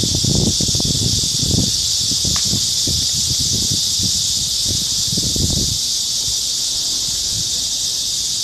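Steady high-pitched drone of a chorus of cicadas in the trees, with irregular low thumps from the walking, hand-held microphone in the first six seconds.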